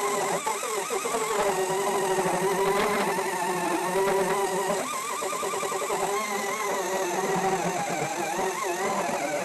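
Electric power sander with 120-grit paper running steadily, knocking down nail heads flush on wood; its motor pitch wavers slightly as it is pressed to the work.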